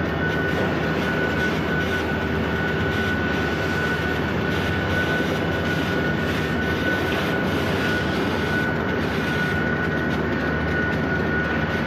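Sugar mill machinery running: a loud, steady mechanical din with a high-pitched whine held throughout.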